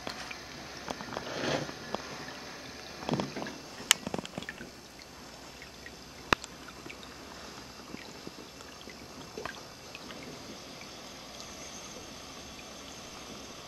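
Ceramic cat drinking fountain: a pumped stream of water arcing from the spout and trickling steadily into the water-filled bowl. A few brief louder bursts in the first four seconds, and two sharp clicks about four and six seconds in.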